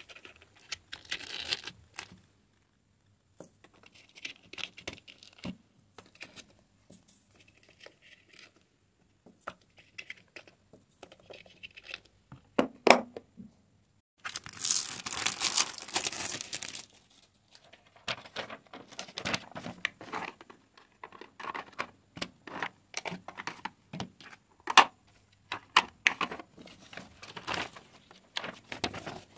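Small plastic bead bottles and a plastic storage box being handled by hand: scattered clicks and taps, then a sharp snap as the box's lid latch closes. This is followed by a few seconds of crinkling and tearing of packaging, and later more crinkly rustling of plastic and paper as the canvas is unpacked.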